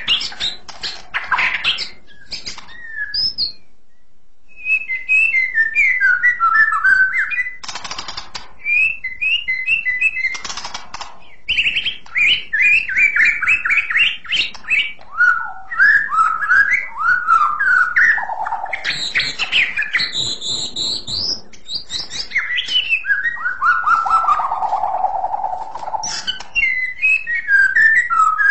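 White-rumped shama singing: fast runs of clear, shrill whistled notes that slide up and down in pitch, with a short pause about four seconds in and a couple of brief harsh, noisy notes a few seconds later.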